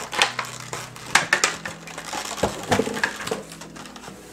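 Clear plastic packaging insert of a Funko Pop box crinkling and crackling in irregular bursts as the vinyl figure is worked out of it by hand.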